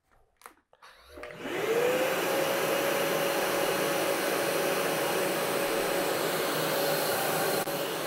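RIDGID shop vac switched on about a second in: its motor whines up to speed within half a second, then runs steadily with a loud rush of air.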